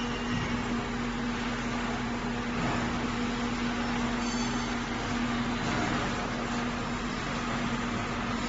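Steady electrical hum with an even hiss from an automatic orbital pipe-welding machine running.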